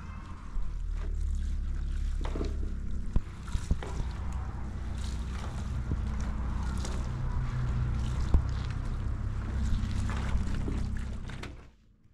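Laundry being washed by hand in a metal basin: water sloshing and wet cloth being squeezed and wrung, over a steady low rumble, with a few sharp knocks.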